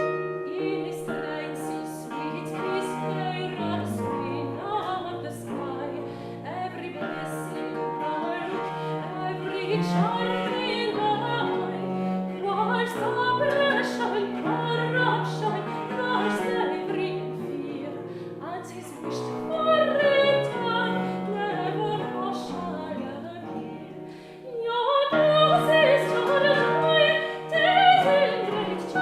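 Early-music ensemble of period instruments playing: a female voice singing with baroque flute, violin, viola da gamba, Celtic harp and theorbo. The music drops briefly about 24 seconds in, then comes back louder.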